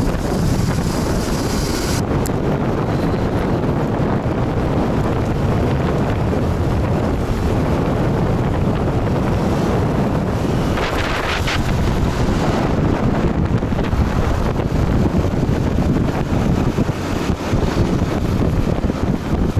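Wind rushing and buffeting over the microphone of a camera on a moving motorcycle, a steady loud rumble, with a short brighter swish about halfway through.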